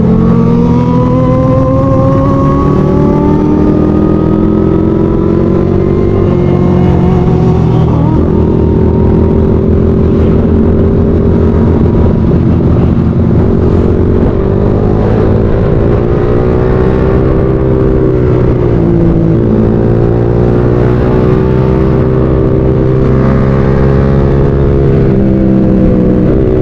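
Motorcycle engine under way: it revs up over the first few seconds, drops at a gear change about eight seconds in, holds fairly steady, eases off briefly past the middle and picks up again, with steady wind noise underneath.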